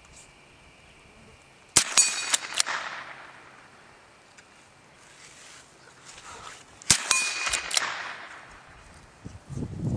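Two .22 LR rifle shots about five seconds apart, each a sharp crack followed by the clang and ringing of a steel plate target as the bullet strikes it.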